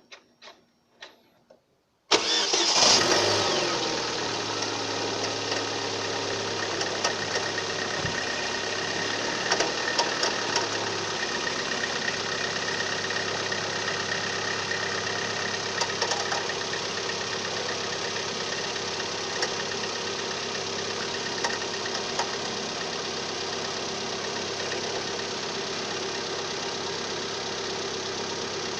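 Opel Z18XER 1.8-litre four-cylinder petrol engine cold-starting about two seconds in, flaring up briefly, then idling steadily with a knock heard at cold start.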